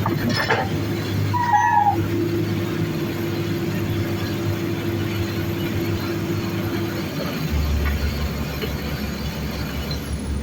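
Diesel engines of a Komatsu excavator and bulldozer running steadily during land clearing, with a brief falling metallic squeal about a second and a half in. A deeper engine rumble comes in about three quarters of the way through, as a machine takes on load.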